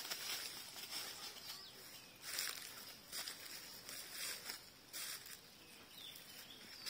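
Footsteps crunching and rustling through dry fallen leaves, a series of irregular short crunches over a faint steady outdoor hiss.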